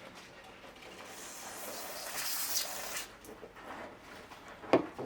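Aerosol can of brake cleaner spraying in one hissing burst of about two seconds that cuts off sharply, followed by a single sharp click near the end.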